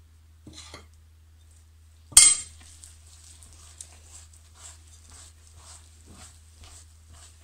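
A metal spoon clinks sharply once against the glass bowl about two seconds in. Then a hand works flour into soft, wet bread dough in the bowl, with soft rhythmic strokes about twice a second.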